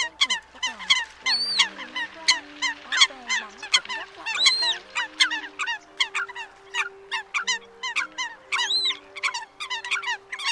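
Eurasian coots calling: a dense, overlapping run of short, sharp calls, several a second, with a few longer arching calls among them. It is the coot call used as a lure for netting migrating coots at night.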